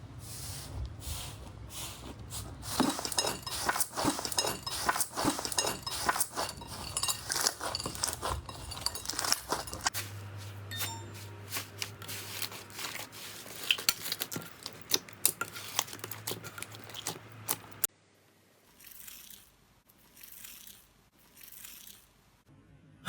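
Slime being pressed and squished, with a dense run of crackling, crunchy pops. Near the end, after a cut, come a few softer swishing pushes about a second and a half apart.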